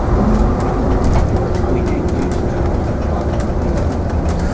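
AEC Routemaster coach's diesel engine running under way as the bus drives along, a steady low rumble heard from up front by the bonnet, with light clicks and rattles from the bodywork.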